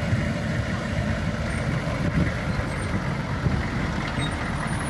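Military Humvees' diesel engines running steadily as the armoured vehicles drive past on a dirt track. The sound cuts off abruptly near the end.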